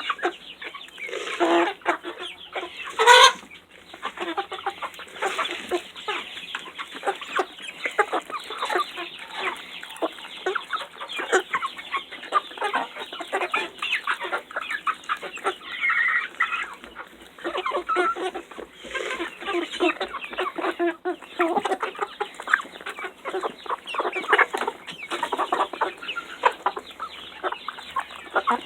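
A flock of young Buff Orpington chickens clucking and calling together while eating mealworms, with many short taps among the calls. A single loud, sharp sound stands out about three seconds in.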